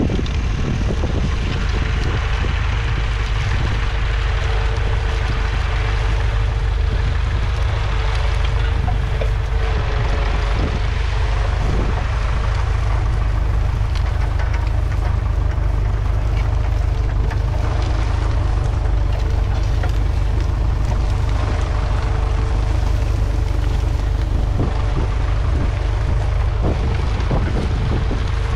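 Massey Ferguson 35's 2.5-litre three-cylinder diesel engine running steadily under load as the tractor pulls a mounted plough, with wind noise on the microphone.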